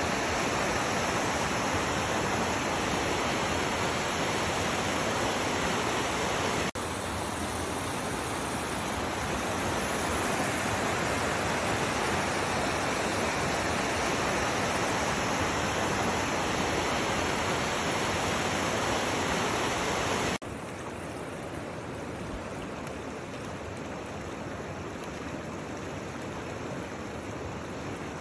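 Steady rush of flowing water. It breaks off abruptly about seven seconds in and again about twenty seconds in, and after the second break it is quieter.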